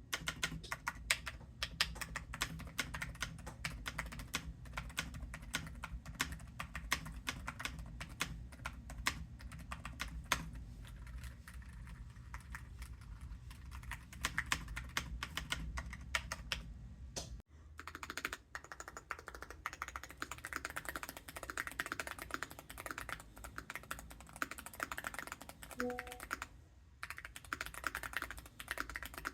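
Hall effect mechanical keyboards being typed on quickly, a steady stream of key clicks. About halfway through the sound changes abruptly to a brighter, higher clack, as a different keyboard takes over.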